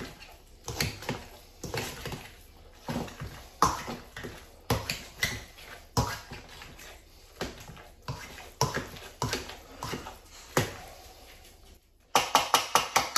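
Potato masher working soft cooked sweet potatoes in a bowl: irregular knocks and squishes about once a second, then a quick run of rapid strokes near the end.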